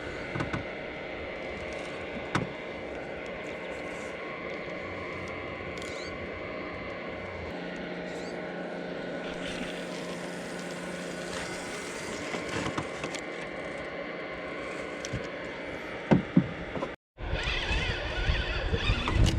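Steady distant engine drone holding several even tones. The sound drops out for a moment about 17 seconds in, and louder, irregular knocking and rustling follows.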